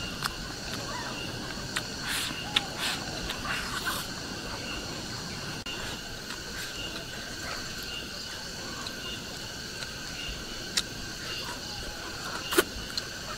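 A steady insect chorus chirring throughout, with close eating sounds over it: chopsticks clicking against a bowl, scattered clicks, and a few brief scraping, slurping smears a couple of seconds in. The sharpest click comes near the end.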